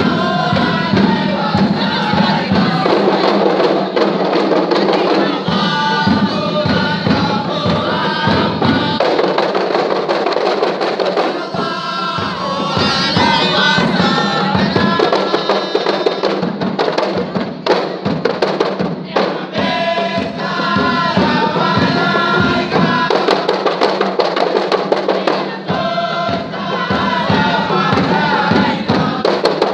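A kompang troupe beating hand-held frame drums in a quick, dense rhythm, with a group singing in chorus over the drums in phrases broken by short pauses.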